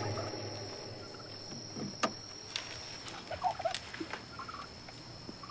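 Quiet ambience with a steady high cricket chirr, a few short faint animal calls like a fowl clucking about three and a half seconds in, and scattered light knocks.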